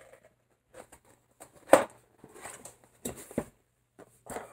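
Cardboard mirror box being opened and handled: scattered taps, scrapes and rustles, with a sharper knock just under two seconds in and a few more a little after three seconds.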